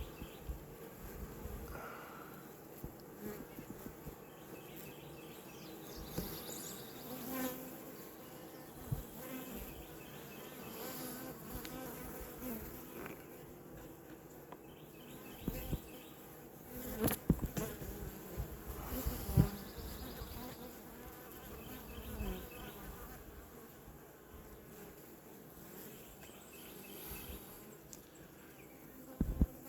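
Honeybees buzzing steadily at the entrance of a hive as they fly in and out, with a few sharp knocks about halfway through.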